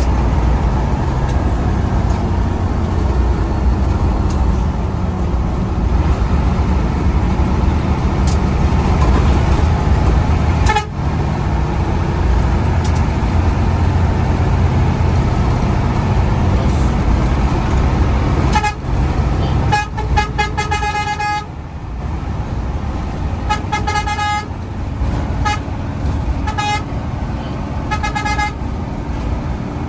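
Intercity bus engine and road noise heard from inside the cabin. From about two-thirds of the way in, a horn sounds in a string of short blasts, including a quick run of rapid toots.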